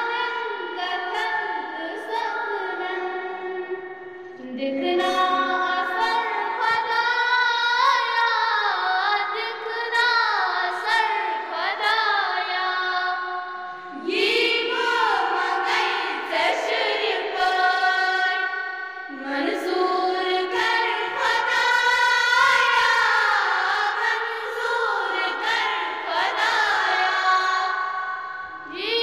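Children's voices singing a morning-assembly prayer song together, in long sung phrases with short breaks between them.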